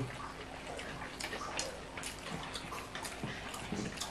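Faint eating sounds: fingers mixing rice and meat on ceramic plates, with a few small, scattered clicks.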